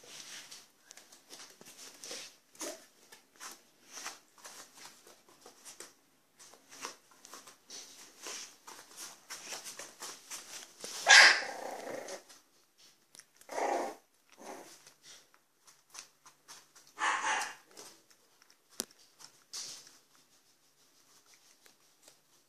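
Bichon frise dogs barking: three barks a few seconds apart around the middle, the first the loudest, over light pattering and scuffling of paws on the floor.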